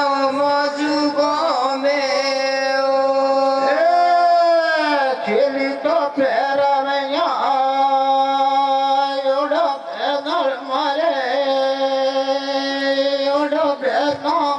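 Gavri folk-song singing: a voice holding long steady notes with ornamented turns, falling in a smooth glide about four seconds in.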